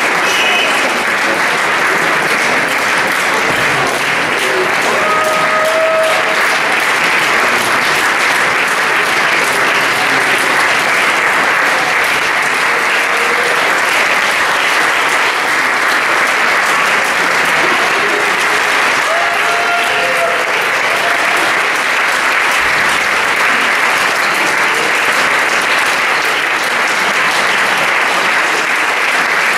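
A large audience applauding: dense, continuous clapping that stays steady without a break, with a few brief voices calling out above it.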